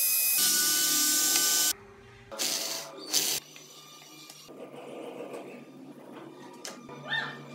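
A small handheld rotary engraving tool grinds tread into a wooden toy wheel with a steady, high whine that cuts off suddenly about two seconds in. Two short bursts of a power drill follow, and a dog whimpers briefly near the end.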